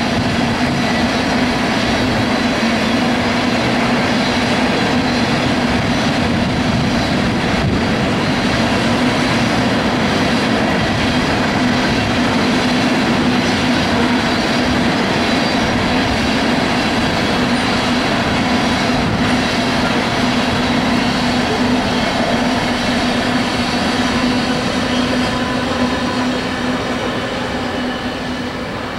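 Tank cars of a freight oil train rolling past, a steady rumble and clatter of steel wheels on rail with a constant droning tone underneath. It grows a little quieter near the end.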